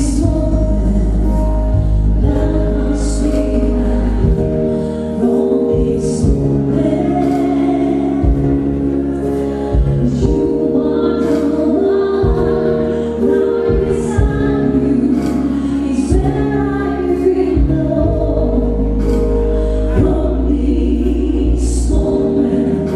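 Music: a choir singing held chords over instrumental accompaniment.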